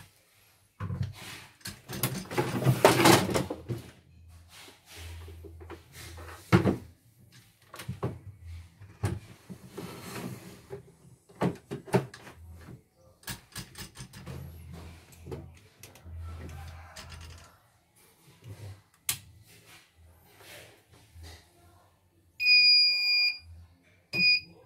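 Clunks and rattles of a stripped CNY portable embroidery machine's metal frame being lifted and turned on a workbench, with scattered clicks. Near the end its control board gives an electronic beep, one long tone of about a second and then a short one, as the machine powers up for a motherboard test.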